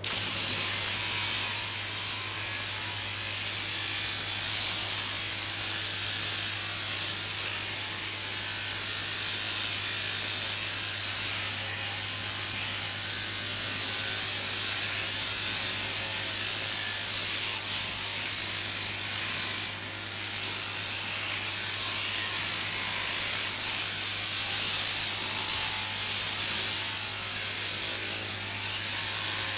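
Mechanical sheep-shearing handpiece, driven from an overhead shearing machine through a down tube, running steadily with a constant low hum as it cuts through a Merino ewe's fleece.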